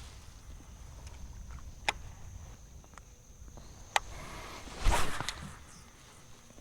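Kayak fishing handling noises: a sharp click about two seconds in and another about four seconds in, then a louder scuffing thump about five seconds in, over a steady high insect drone.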